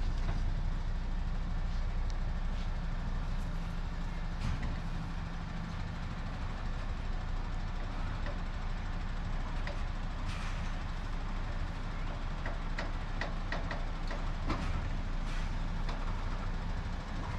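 Truck engine running steadily at low speed as a low multi-axle boat trailer is backed slowly across grass, with scattered light clicks and knocks in the second half.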